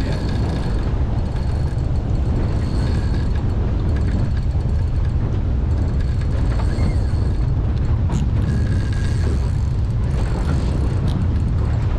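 Strong wind buffeting the microphone, a steady low rumble, with faint mechanical sound from a fishing reel being cranked against a heavy fish.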